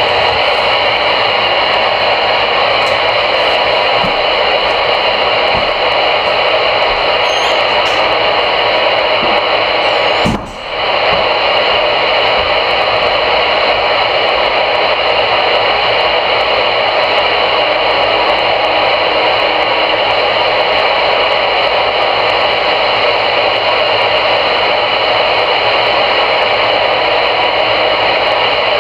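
CRE 8900 CB radio receiving on channel 22, its speaker giving a steady loud band of static hiss with no voice coming through. The hiss drops out briefly about ten seconds in, then returns.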